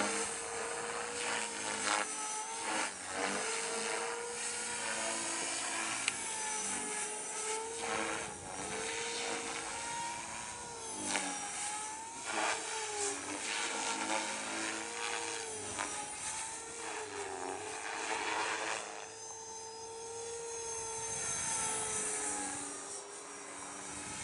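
Small radio-controlled helicopter in flight, its rotor and motor whine dipping and rising in pitch over and over as it manoeuvres.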